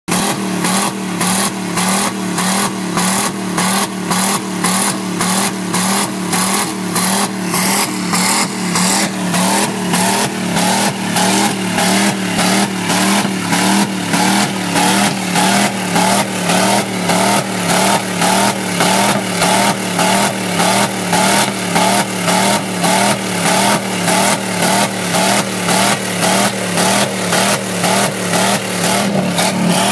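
Chevrolet 350 small-block V8 in a pickup held wide open against its rev limiter, the engine note stuttering in a steady rhythm of about two cuts a second as the limiter cuts the engine and lets it back in.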